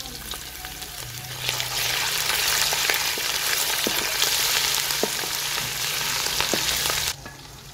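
Ginger paste sizzling in hot oil with fried onions in a metal karahi while a wooden spatula stirs it, with small scraping ticks. The sizzle swells about a second and a half in and stops abruptly near the end.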